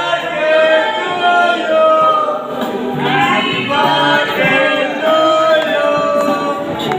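A song with sung vocals, held melodic notes over a musical backing.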